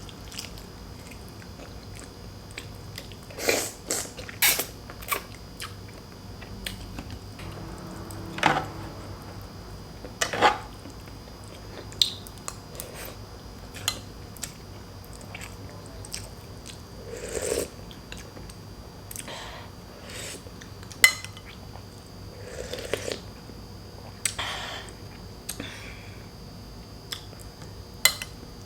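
Close-up eating sounds: chewing and biting boiled pork hock and rice, with scattered sharp clicks and short wet smacks every second or two.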